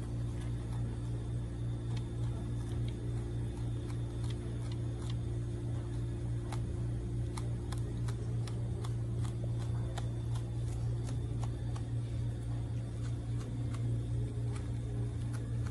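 A wallaby chewing fresh plant stems and leaves, making many small, irregular crisp clicks, over a steady low mechanical hum.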